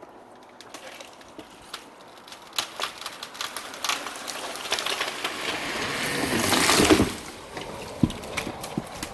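A large tree falling: sharp cracks and snaps of the breaking trunk come thicker and faster, then a rushing swish of the crown through the air builds up and ends abruptly about seven seconds in, followed by a couple of knocks as it settles.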